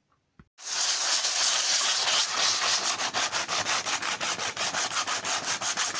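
Sandpaper rubbed by hand over a wooden rudder coated in cured fibreglass resin, in rapid back-and-forth strokes, starting about half a second in.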